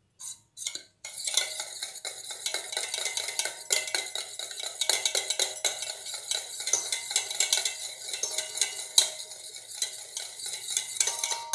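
Wire hand whisk beating oil and curd together in a stainless steel bowl: fast metal clicking and scraping against the bowl. It begins with two short bursts, then runs on as steady rapid whisking.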